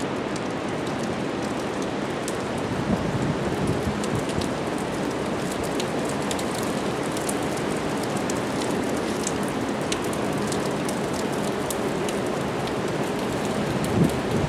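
Heavy hurricane rain falling steadily, with many sharp drop hits on surfaces. There is a brief low thump near the end.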